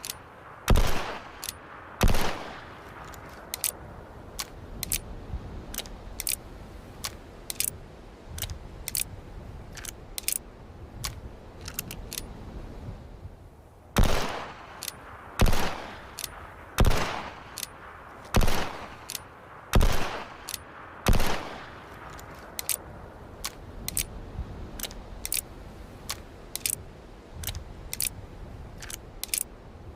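Single-action revolver firing: two shots near the start, then after a long run of light clicks, six shots in a row about a second and a half apart, each ringing briefly. More light clicks follow the last shot.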